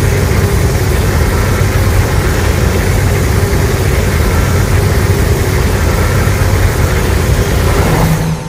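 Film sound effect: a loud, steady rumbling roar of noise, heaviest in the low end, that cuts off abruptly near the end and dies away.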